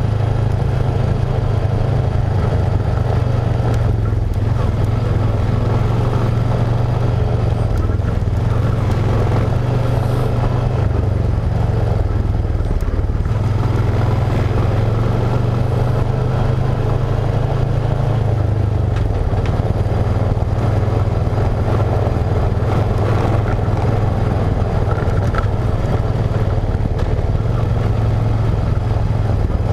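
ATV engine running steadily while riding along a dirt trail, its drone shifting slightly in pitch a few times as the throttle changes.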